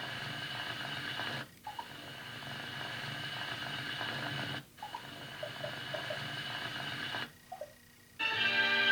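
Television audio, mostly music, cut off abruptly three times as the channel is switched. There are two brief gaps, about a second and a half in and near the middle, and a longer one of about a second near the end.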